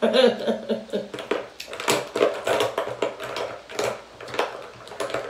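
Irregular clicks and light knocks of small containers and tools being handled on a tabletop. A woman's voice murmurs briefly at the start.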